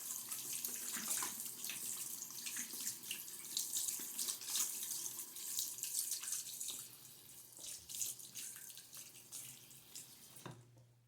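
Tap water running into a sink while hands are rinsed under it, a steady splashing hiss. It grows weaker over the last few seconds and fades out near the end.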